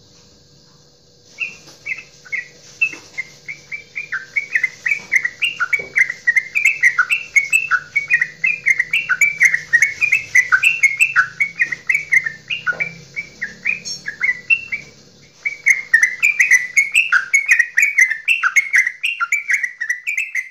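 Yellow-vented bulbul (trucukan) singing a long, rapid chattering 'goklikan' run of quick bubbling notes. It starts about a second in and pauses briefly near the end before going on.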